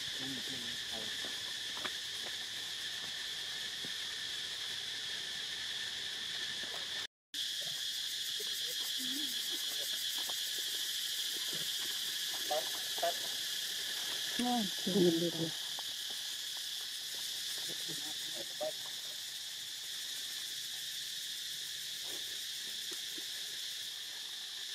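Steady, high drone of insects in two even pitch bands. A little past halfway come a few short, pitch-bending voice-like calls, and the sound drops out for a moment about a third of the way in.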